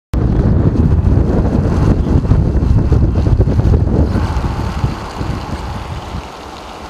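Strong wind buffeting the microphone: a loud, low, gusting rumble that eases after about four seconds.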